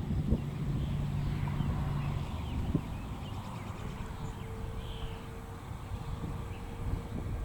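Outdoor background of low rumble with faint bird chirps. A steady low hum stops about two seconds in, there are two brief knocks, and a faint steady tone comes in near the middle.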